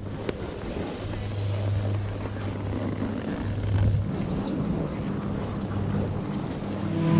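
A steady low hum over an even wash of noise, with the hum's pitch stepping up about halfway through.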